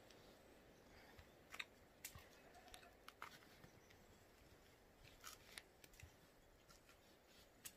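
Near silence with faint, scattered clicks and snaps as small citrus fruits are peeled and broken open by hand.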